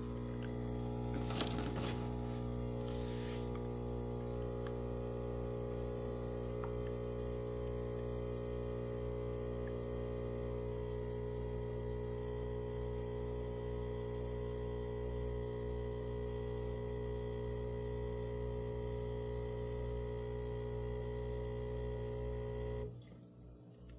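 Capsule espresso machine's pump humming steadily while it brews a shot into the cup, with a few light clicks in the first seconds; the hum cuts off suddenly near the end as the brew finishes.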